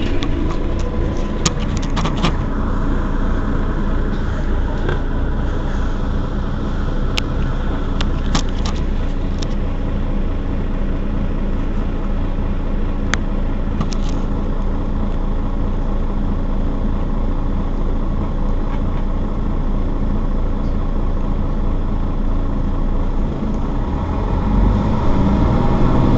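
Mercedes-Benz Citaro city bus engine running with a steady low rumble, with a few sharp clicks in the first half; the engine grows louder near the end.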